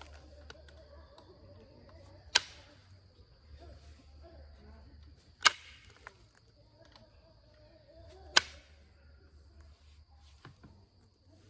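Three sharp strikes of light indirect percussion, about three seconds apart: a hammer striking a punch set on the base of an Onondaga chert point to thin it. The strikes are kept light because of a crack in the stone.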